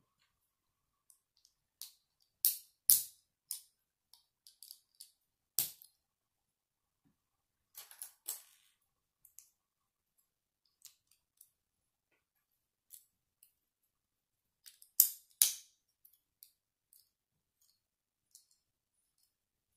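Small plastic Lego bricks being handled and pressed together by hand: scattered sharp clicks and small rattles, the loudest a pair about three seconds in and another pair about fifteen seconds in.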